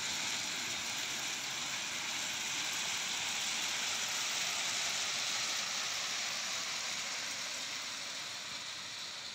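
Crushed-stone railway ballast pouring from the bottom discharge chutes of a slowly moving hopper wagon onto the track: a steady, even rush of falling stones.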